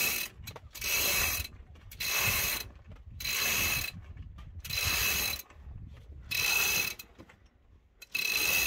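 Sailboat halyard winch ratcheting as it is cranked with a winch handle to hoist the mainsail. It clicks in short spells of about half a second, roughly one a second, with a longer pause near the end.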